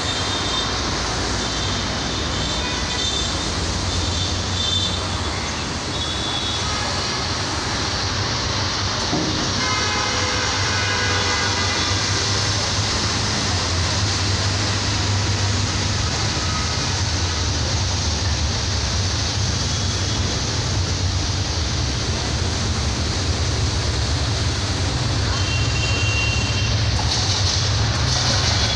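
Approaching diesel locomotive hauling a container freight train: a steady low engine drone that slowly grows louder, with a burst of hiss near the end.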